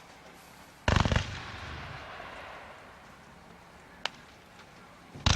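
49-shot fan fireworks cake firing: a quick volley of several sharp bangs about a second in, trailing off into a fading rumble and hiss. A single sharp crack follows about four seconds in, and another volley of bangs starts at the very end.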